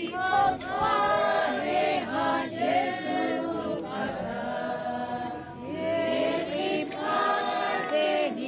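Congregation of mourners singing a hymn together without instruments, many voices holding long notes.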